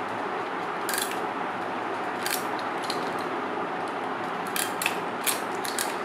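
Blades of a handheld RJ45/RJ11 modular plug crimping tool snipping and clicking as it cuts the inner plastic and threads of a network cable. There is a click about a second in, two more just after two seconds, then a quick run of clicks near the end, over a steady hiss.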